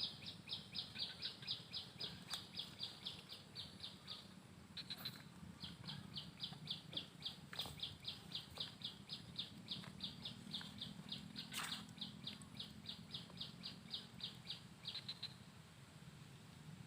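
A bird calling a rapid, even series of short high chirps, about four a second, breaking off briefly about four seconds in and stopping near the end, over a faint low steady hum.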